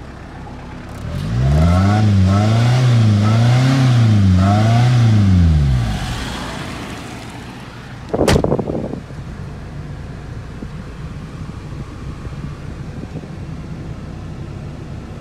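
Car driving, heard from inside the cabin: steady engine and road noise, with a loud low droning tone that wavers up and down several times for about four seconds near the start, and a sharp knock about eight seconds in.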